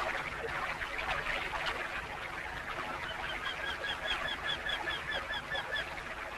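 A bird calling a rapid run of short, evenly spaced chirps, about five a second, starting about three seconds in and stopping shortly before the end. Under it is the steady hiss of an old film soundtrack.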